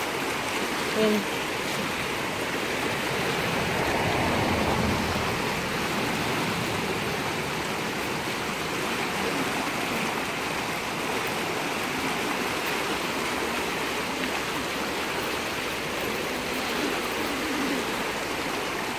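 Steady rushing of a muddy river in flood, its fast, high brown water churning past.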